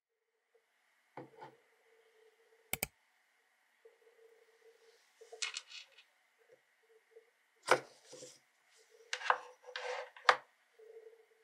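Light clicks, taps and knocks of a glass candle jar being handled on a desk as its wooden lid is lifted off and set down, with the sharpest knocks in the second half over a faint steady hum.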